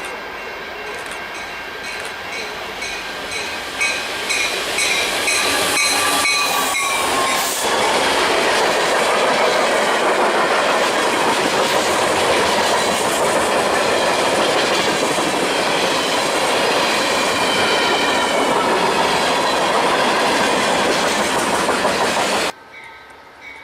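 A train passing at close range, its wheels rolling and clicking over rail joints, with faint squealing tones from the wheels. The sound grows louder over the first several seconds, holds, then cuts off suddenly near the end.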